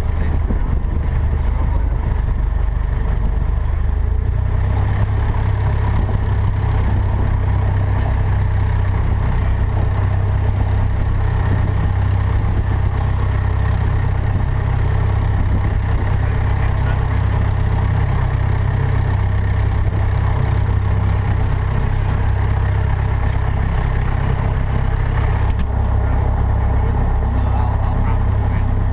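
Cessna 152's four-cylinder Lycoming engine and propeller running steadily, heard from inside the cockpit. Its note shifts about four seconds in and again near the end.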